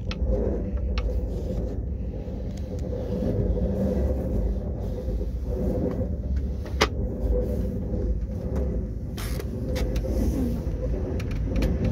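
A vehicle running with a steady low rumble, with one sharp click about seven seconds in.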